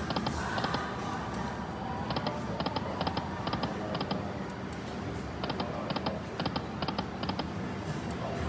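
Aristocrat Buffalo Cash video slot machine spinning, with quick runs of sharp electronic clicks as the reels stop one after another. Steady casino background din and music run underneath.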